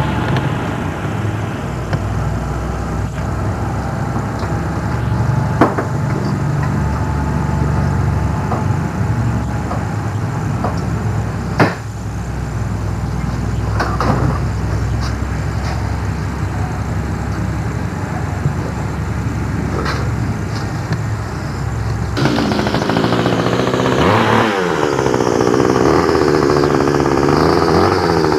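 Small two-stroke string trimmer engine running steadily, with a few sharp knocks. Near the end it gets louder and its pitch dips and comes back up.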